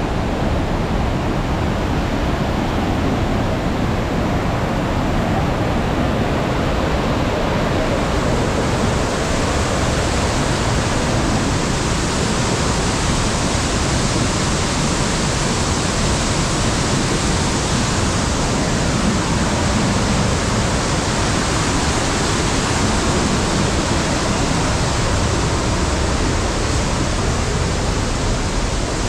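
Loud, steady rush of falling water from a waterfall or fast stream cascade, even across all pitches, a little brighter after about eight seconds.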